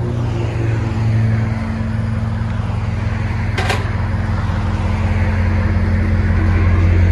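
Ram 1500's 5.7 L Hemi V8 running steadily at idle through a 3-inch exhaust with a Flowmaster Outlaw muffler in place of the factory muffler and the original resonators kept, heard at the tailpipe. It grows a little louder toward the end. There is one short click partway through.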